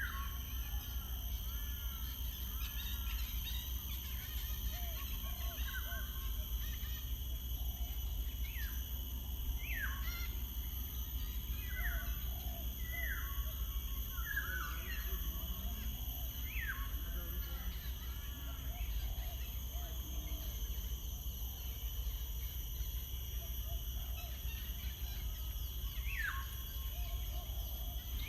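Wild birds calling and singing, with repeated short whistled notes that slide quickly downward and softer chirps between them, over a steady low background rumble.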